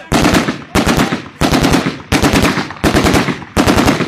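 Automatic fire from AK-pattern assault rifles, loosed in short bursts of a few rounds each. Six bursts come in quick succession, about one every 0.7 seconds.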